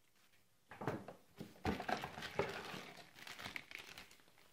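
Crinkling and rustling of cardboard packaging and a cable being handled as accessories are taken out of a camera box, starting about a second in, with many small clicks, and dying down near the end.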